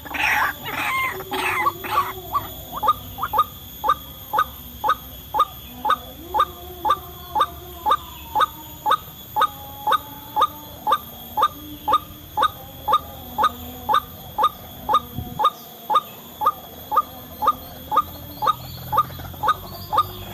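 White-breasted waterhen (ruak-ruak) calling: a jumbled burst of calls at the start, then a long, even series of sharp calls about two a second.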